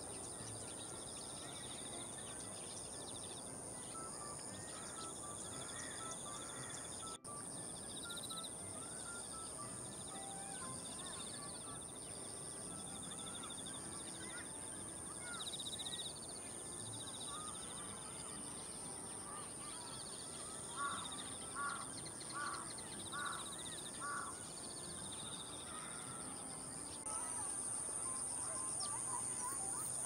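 Outdoor paddy-field ambience with a steady high-pitched insect chorus and scattered small bird calls. About two-thirds of the way in, a crow caws about five times in quick succession.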